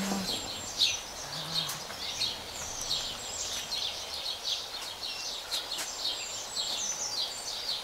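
Small birds chirping and twittering, many short high notes overlapping one another without a break.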